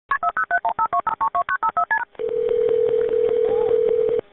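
Touch-tone telephone keypad dialing: a quick run of about a dozen paired-tone beeps over two seconds. Then a steady ringback tone for about two seconds as the call rings through to 911, all heard over a narrow phone line.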